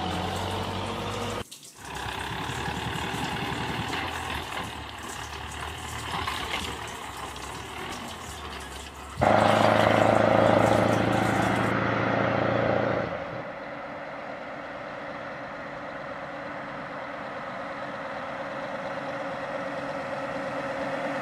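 Road and engine noise inside a moving car, picked up by dashcams. The sound changes abruptly where clips are cut together, with a louder stretch of about four seconds near the middle.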